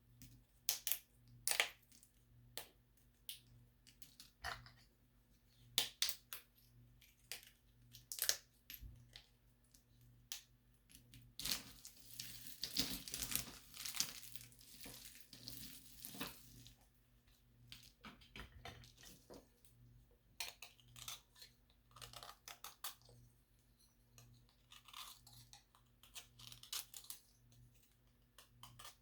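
Small plaster tiles handled close to the microphone: a string of sharp clicks and taps, with a stretch of crunching and crumbling about halfway through and a softer one near the end.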